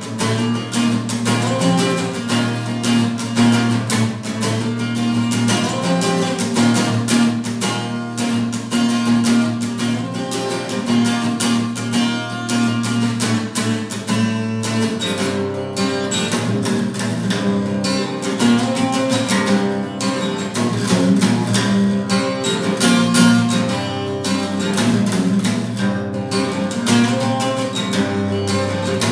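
Acoustic guitar (violão) strummed in a quick, steady rhythm of chords, with a change of chords about halfway through.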